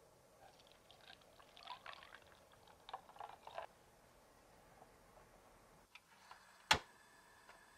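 Custard mixture poured through a fine mesh strainer into an enamel pan, with small splashing and trickling for about three seconds. Near the end, a single sharp click from the gas hob.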